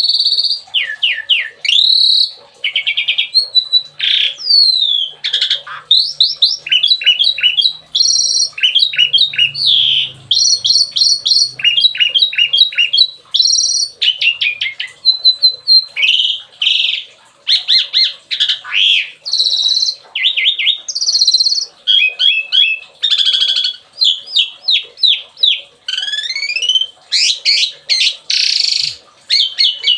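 Songbird singing loudly and without pause, a long varied run of rapid down-slurred whistles, trills and a few harsh notes, phrase after phrase with only short gaps. This is the rapid-fire 'tembakan' song used as masteran, training audio for caged songbirds.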